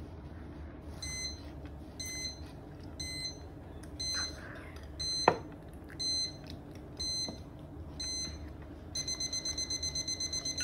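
Smartphone timer alarm beeping: a short high beep about once a second, then quickly repeated beeps near the end, as the one-minute timer runs out. A single sharp click about halfway through.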